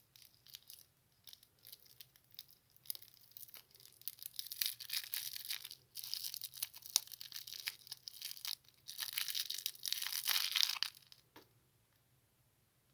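Candy wrappers being torn open and crinkled by hand, a dense run of crackling and ripping that builds up and is loudest in the second half, then stops about a second before the end.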